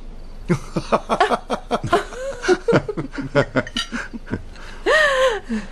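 Laughter: a run of short, quick chuckles, ending with one longer voiced sound that rises and falls in pitch near the end.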